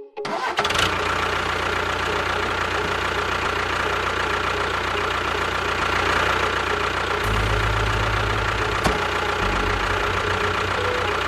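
Engine of a DIY mini construction machine running steadily, starting abruptly. It gets heavier and lower from about seven seconds in, with a single click near nine seconds.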